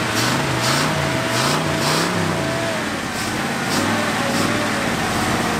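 Ford 460 big-block V8 in a 1979 F-150 running just after its first start since an engine fire, its speed rising and falling in a quick, even rhythm about every two-thirds of a second, then settling lower about halfway through. It runs rough, not yet sounding like all eight cylinders are firing, as the owner hears it.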